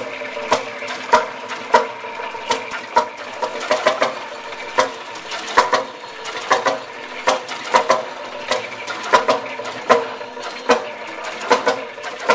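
Single-cylinder two-stroke engine of a 1918 Jelbart tractor running, with sharp firing beats about three every two seconds over a steady mechanical clatter.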